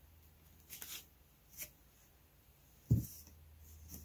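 Plastic tablet-weaving cards clicking and rustling against each other as the pack is turned by hand, with a few soft clicks, then a sharper knock about three seconds in.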